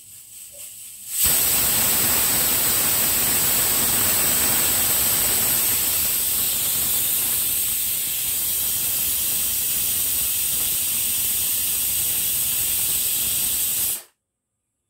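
Stovetop pressure cooker whistling: steam forced out past its weighted vent in a loud, steady hiss, the sign that the cooker is up to pressure. It starts about a second in and cuts off suddenly near the end.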